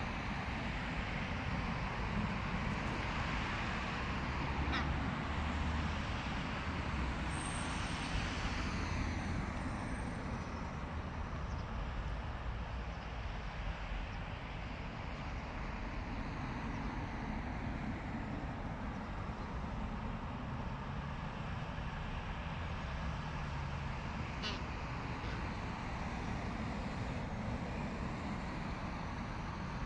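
Steady hum of distant road traffic, even throughout.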